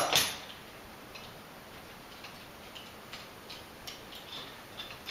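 Small, irregular metal clicks and ticks of a nut and bolt being unscrewed and taken out by hand from a dog wheelchair's frame support.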